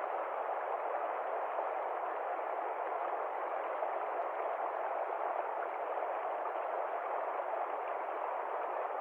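A steady, even rushing noise with no pitch or rhythm, holding the same level throughout.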